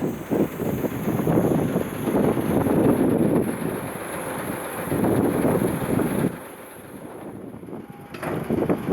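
Strong gusty wind buffeting the microphone in uneven surges, easing for about two seconds near the end before gusting up again.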